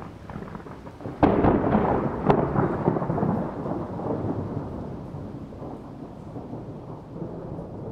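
Thunder sound effect: a sudden crack about a second in, a second sharp crack soon after, then a long rolling rumble that slowly fades.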